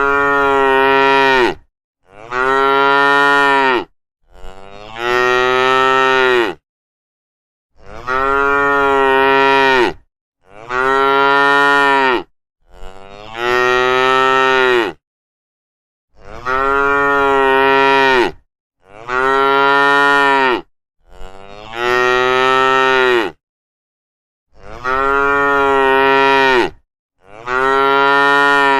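Cows mooing: a string of about eleven long moos, each lasting roughly two seconds, separated by short gaps of dead silence.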